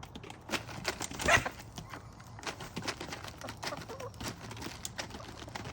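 Chickens clucking, with many quick taps and clicks throughout and one louder call about a second in.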